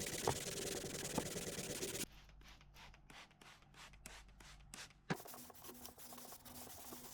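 Hand sanding that works furniture wax into mahogany wood: first a steady scratchy rubbing. After an abrupt cut about two seconds in, a quieter run of back-and-forth strokes follows, about four a second.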